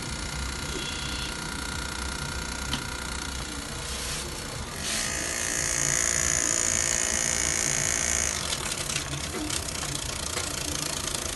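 A small electric machine whirring steadily over a constant background hum, louder and higher-pitched from about five seconds in until a little past eight seconds.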